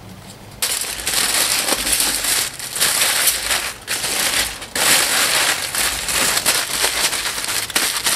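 Vegetables sizzling and crackling on a hot charcoal grill. The sizzle starts abruptly about half a second in and carries on loud, with a few brief dips.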